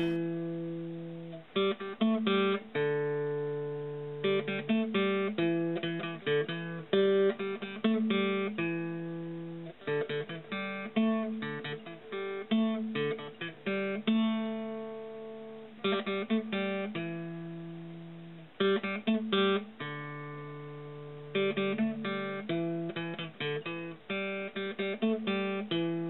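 Guitar music: picked notes that ring and fade over held bass notes, in a short phrase that repeats.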